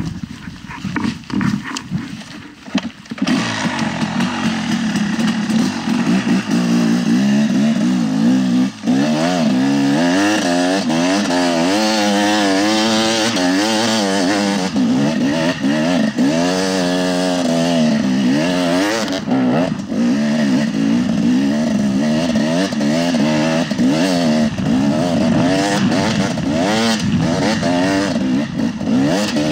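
KTM 300 XC-W two-stroke dirt bike engine with a full FMF exhaust running under way, its revs rising and falling again and again. Irregular knocks come in the first three seconds, before the engine sound takes over.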